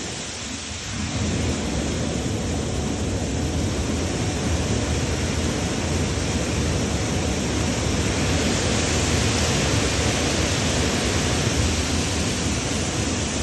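Kubota ER470 combine harvester running steadily, a dense mechanical roar of engine and threshing machinery, getting a little louder about a second in.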